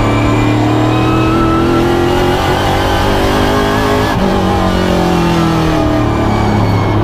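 Pro Stock race car's V8 engine at racing speed, heard from inside the car. The engine note climbs for about four seconds, drops sharply as the throttle comes off, winds down, then picks up again near the end.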